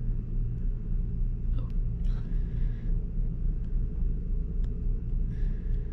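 A steady low hum with even bands, with faint brief scratching about two seconds in and again near the end, as a fingernail works at the peel-off layer of a trading card.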